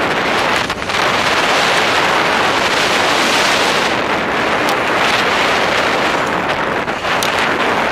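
Loud, steady rush of wind on the microphone of a skier's camera during a fast slalom run, mixed with the skis on the snow, with a few brief clicks.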